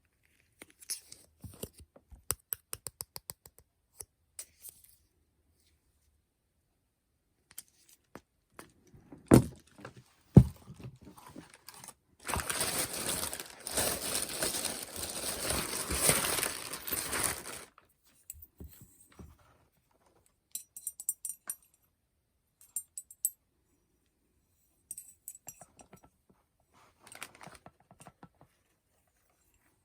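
Merchandise being handled: light rattling clicks, then two sharp knocks about a second apart. Then comes about five seconds of rustling, and scattered light clicks near the end.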